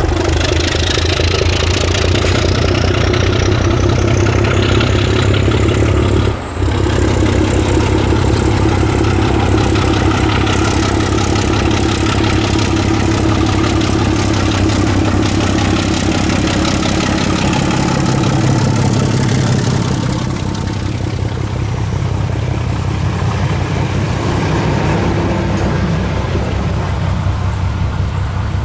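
Class 749 'Bardotka' diesel locomotive 749 247-3 with no exhaust silencer, pulling away from a standstill under power: its six-cylinder ČKD diesel runs loud and unmuffled, with a high whine rising over the first few seconds and a momentary dip about six seconds in. It eases somewhat in the last third as the locomotive passes and moves away.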